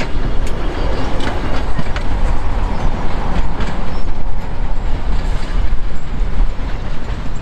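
Narrow-gauge (750 mm) steam train's wooden carriages rolling away, the wheels clicking and knocking irregularly over rail joints and points, over a steady low rumble.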